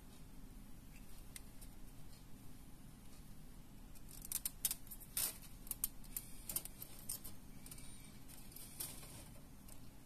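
Small sharp metal clicks and ticks of pliers working a thin wire, several in a cluster from about four seconds in until about nine seconds.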